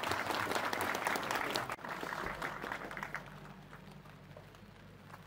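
Audience applauding at the close of a speech, the clapping dying away about three seconds in.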